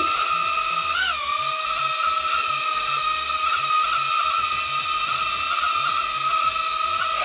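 Mini toy quadcopter's motors and propellers whining at a high, steady pitch. The pitch surges up briefly about a second in as it lifts off, then settles into an even hover.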